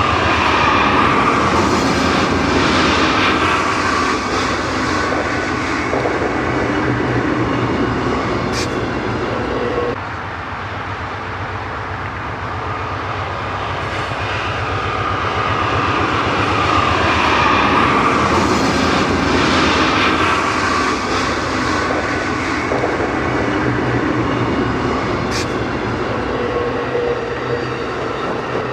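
A long Amtrak passenger train going by, its diesel locomotives running and its wheels rolling on the rails as a steady roar. The sound drops abruptly about ten seconds in, then builds again.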